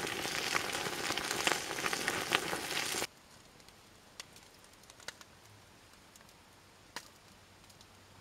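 Campfire crackling and sizzling as oily trout remains burn on it, with many small pops. It cuts off suddenly about three seconds in, leaving near silence with a few faint clicks.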